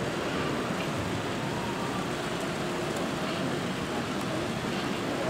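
Steady background hubbub of a busy exhibition hall: an even wash of noise with faint, indistinct voices in it.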